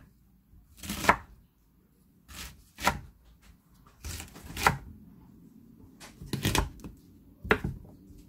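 Chef's knife chopping a bundle of blanched sweet potato stems on a wooden cutting board: several irregularly spaced cuts, each ending in a knock of the blade on the board.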